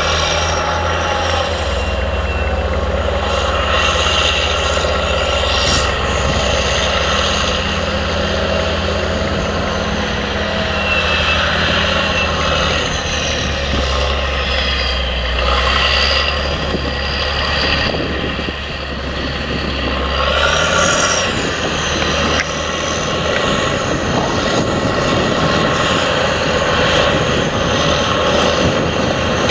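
Caterpillar Challenger MT865C tracked tractor's six-cylinder diesel running steadily under load while pulling a reversible plough. The low engine drone changes about twenty seconds in as the tractor comes past close by.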